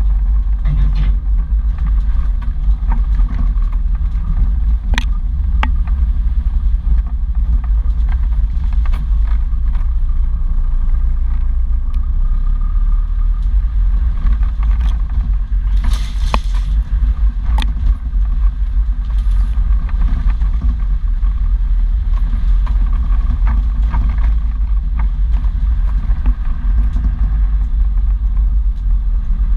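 Off-road 4x4 driving slowly over a rough, muddy track: steady engine and drivetrain rumble with occasional knocks as the vehicle jolts over ruts. There is a short burst of hiss about halfway through.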